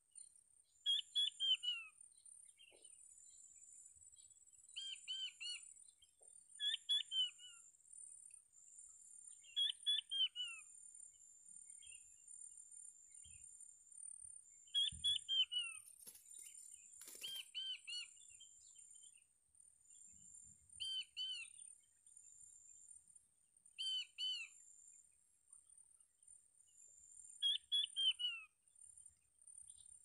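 Rock quail (puyuh batu) calling: short series of two or three descending whistled notes, repeated every two to four seconds. A steady high-pitched whine runs underneath, and there is a brief crackle about halfway through.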